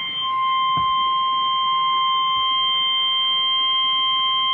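NOAA Weather Radio's 1050 Hz warning alarm tone: a loud, steady, unbroken single-pitched tone. It is the alert that comes right before a new warning is read, here a tornado warning.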